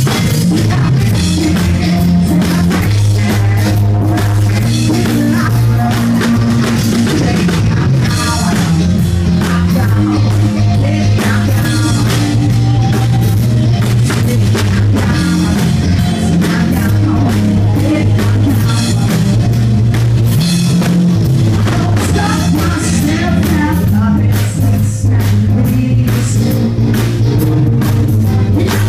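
Live band jamming loudly: drum kit, electric bass and guitar, with saxophone and a man's voice singing into a microphone over a steady, heavy bass line.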